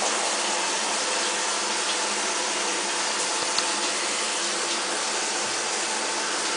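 Water running steadily from a tap, the sound a toilet-trained iguana has learned as his cue to relieve himself. A single light click about three and a half seconds in.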